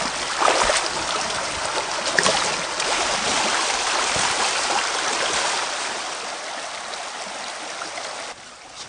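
Rushing water of a shallow stream, with splashing as someone wades through it dragging a bicycle and trailer. The rushing eases over the last few seconds and drops off abruptly near the end.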